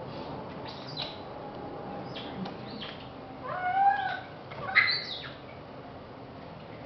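Bird calls: several short, high chirps falling in pitch, then a louder, longer arched call and a sharp call near the end.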